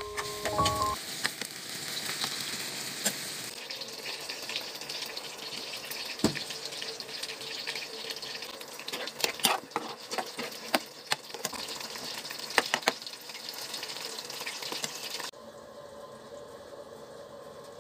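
Chicken and onions frying and sizzling in a pan, with a utensil clicking and scraping against the pan now and then as the food is stirred. The sizzling cuts off suddenly near the end, leaving a faint hiss.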